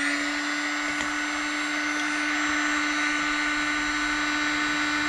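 Electric hot-air blower spinning up and then running steadily with a whirring hum and rush of air, used to preheat a nitro RC car engine.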